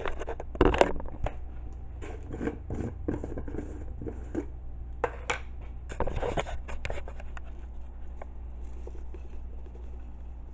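Close handling noises from a jar of chicken bouillon powder and a camera being moved and set down: a run of clicks, scratches and scrapes for about the first seven seconds, thinning out after that.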